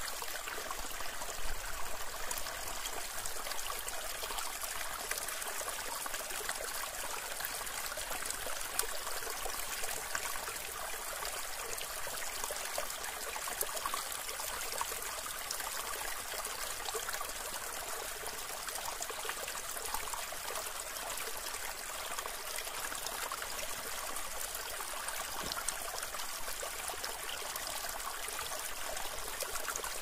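Shallow stream flowing over rocks: a steady, unbroken rush and trickle of water.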